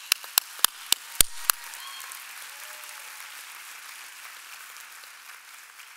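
Audience applause, with about six loud, sharp hand claps close to the lectern microphone in the first second and a half. The applause then slowly fades.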